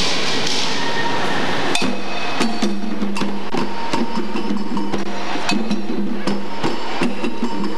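Hand drumming on congas and djembes. After a hard hit about two seconds in, the drums settle into a steady rhythm of sharp slaps and strikes.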